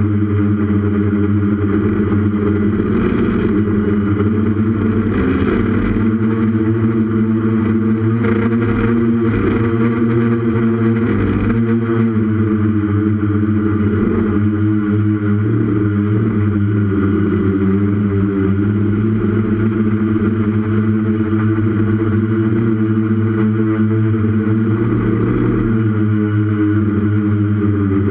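Brushless Tiger motors and propellers of a 6S Iconic-X FPV multirotor in flight, a steady multi-tone buzz that wavers slightly in pitch with throttle, heard from the camera on board the aircraft.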